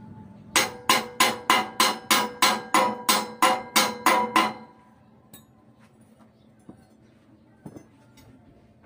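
A hammer striking steel on a tractor harrow frame being fabricated: about thirteen quick blows at roughly three a second, each ringing like struck metal, stopping about four and a half seconds in. A few faint clicks follow.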